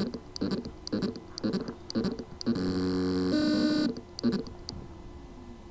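WD Caviar Green 3.5-inch hard drive's spindle motor trying to spin up with loose motor contacts. It gives short buzzing pulses about twice a second, a steady hum for about a second and a half partway through, then a couple more pulses and a fading tone. This is the sound of a motor that spins but cannot reach full speed.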